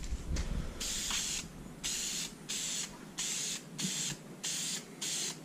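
Aerosol spray can of fabric dye hissing out in about eight short spray bursts, roughly one every two-thirds of a second.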